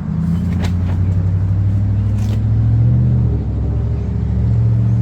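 A motor vehicle engine running with a steady low hum, its pitch shifting a little about three seconds in. Two light clicks come in the first few seconds.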